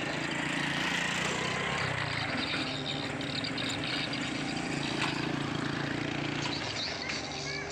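Diesel engine of a heavy earthmoving machine (excavator or bulldozer) running steadily.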